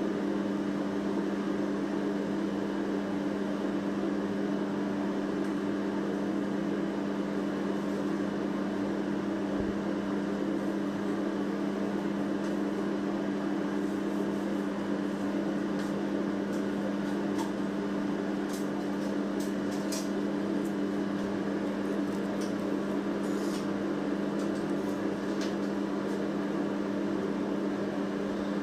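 Steady mechanical hum from a running motor or appliance, even in level throughout, with a few faint light clicks in the second half.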